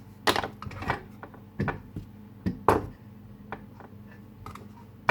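Cucumber slices being pushed by hand into a glass jar: several separate soft taps and knocks at irregular intervals.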